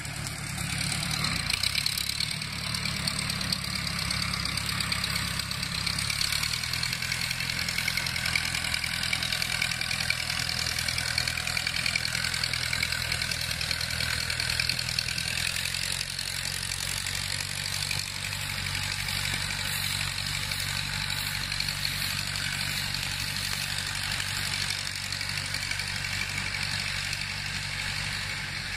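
Ford 901-series Select-O-Speed tractor's four-cylinder engine running steadily under load as it drives up a hill, growing a little fainter in the second half as it pulls away.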